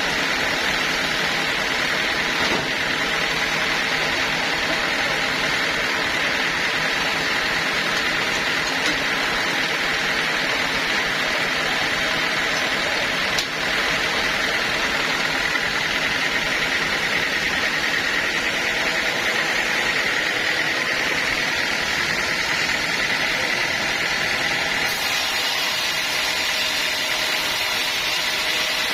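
Sawmill machinery running steadily, an engine-driven mill cutting teak logs, with a steady mechanical whine and hiss.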